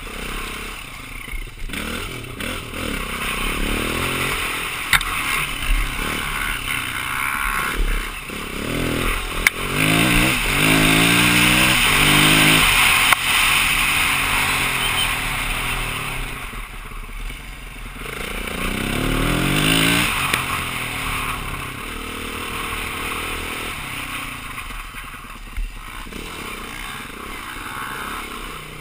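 Single-cylinder four-stroke engine of a 2009 BMW G450X dual-sport motorcycle, heard while riding. It revs up under acceleration twice, about nine and eighteen seconds in, and is loudest about ten to thirteen seconds in. A few sharp knocks break through.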